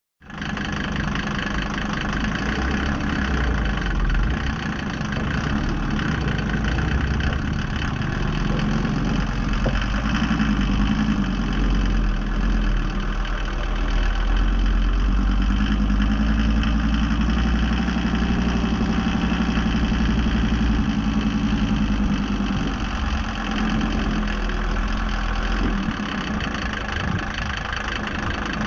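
Engine of an ARO 4x4 off-roader running steadily, with no speech or music over it.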